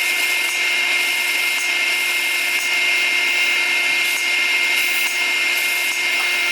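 Sandblaster blasting grit onto a steel gear: a steady, loud air-and-grit hiss with a thin constant whistle over it, cleaning the metal surface.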